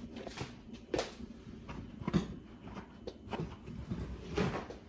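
A few faint, separate knocks and rustles, about a second apart, from someone moving about and handling things in a kitchen.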